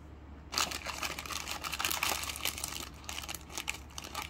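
Plastic packaging of a box of dog treats crinkling and rustling in rapid bursts as a biscuit is taken out, starting about half a second in.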